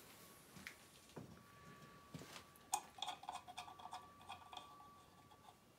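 Faint, scattered light metallic clicks and taps of hand work on an engine block, with one sharper click a little before halfway and a cluster of small ticks after it. A faint, steady high hum lies underneath.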